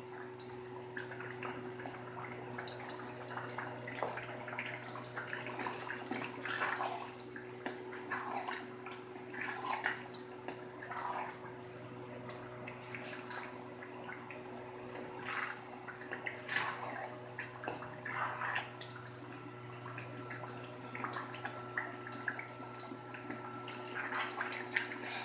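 Beef karahi curry sizzling and bubbling in a steel karahi as it is fried down (bhuna), while a wooden spoon stirs it. Irregular scrapes and spatters rise over a steady low hum.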